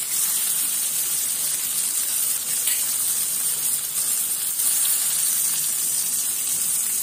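Stuffed pomfret frying in hot oil in an iron kadhai, sizzling steadily.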